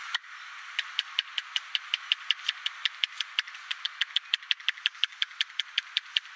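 Rapid, evenly paced tapping on a person's head during a head massage, about five crisp taps a second, starting about a second in, over a steady background hiss.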